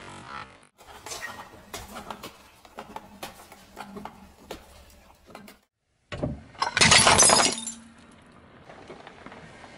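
Crackling and crunching of objects being crushed under a car tyre, then, after a brief gap, a glass dish shattering loudly under the tyre about seven seconds in, with clinking pieces.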